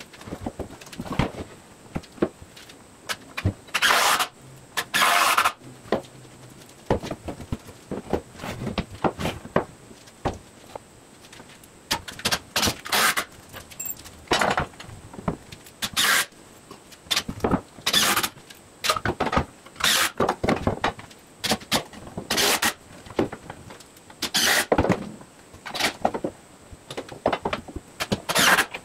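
Cordless DeWalt impact driver driving screws into 2x4 framing lumber, in about a dozen short hammering bursts of under a second each. Knocks and clatter of wood and screws being handled come between the bursts.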